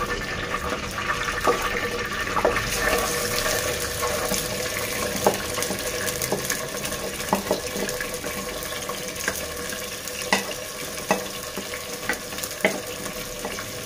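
Chopped tomatoes, green chillies and onions sizzling as they go into hot ghee in a clay pot, the hiss opening up about two and a half seconds in. Scattered clicks of a spoon scraping a steel bowl.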